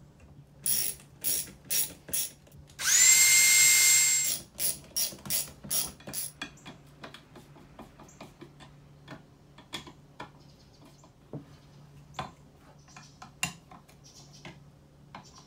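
A cordless drill/driver with a 10 mm socket runs with a steady whine for about a second and a half, driving a mounting bolt into a wall stud, between two runs of sharp clicks. After that, a hand socket ratchet gives off many lighter, irregular clicks as the bolts are snugged down.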